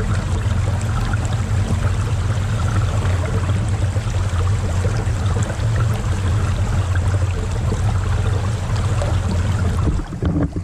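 Steady rush of running creek water with a strong, even low rumble underneath; the sound drops away abruptly near the end.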